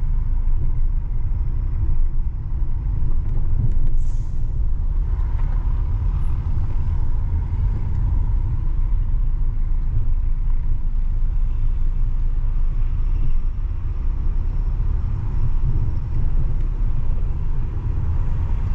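Car driving along a road: a steady low rumble of engine and tyre noise, with a brief hiss about four seconds in.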